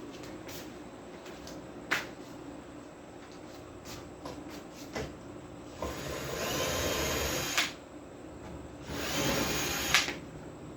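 Cordless electric screwdriver running in two bursts, one of about two seconds and a shorter one of about a second, backing out the screws of a power amplifier's cover. A few sharp clicks and knocks come between the bursts.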